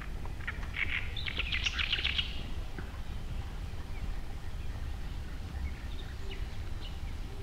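A bird calling a quick chattering burst of about a dozen rapid notes, starting about half a second in and lasting under two seconds, then a few faint single notes, over a steady low rumble.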